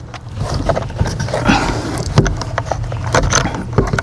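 Plastic trim clips and a brake-light housing clicking and knocking as the clips are pushed in and the panel is worked loose, with a brief scrape about one and a half seconds in.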